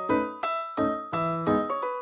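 Background music: a light keyboard-like melody of struck notes, several a second, each ringing and dying away.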